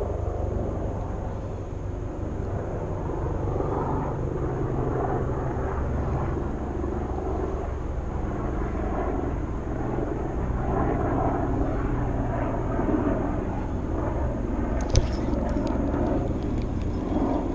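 Steady rushing of creek water mixed with a low rumble of wind on the microphone, with one short sharp click about fifteen seconds in.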